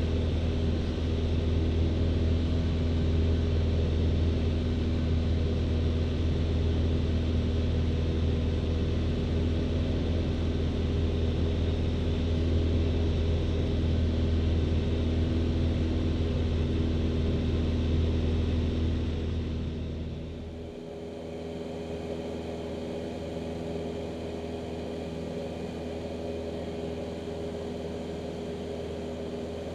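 Steady drone of a light airplane's piston engine and propeller, heard on board in flight. About two-thirds of the way through the sound drops suddenly to a quieter, differently pitched drone, which then holds steady.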